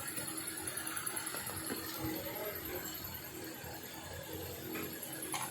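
Faint background music with a few light clicks.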